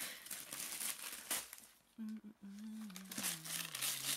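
Gift wrapping paper crinkling and tearing as a present is unwrapped. About halfway in, a person's voice holds one long low drawn-out note that slides slightly down in pitch.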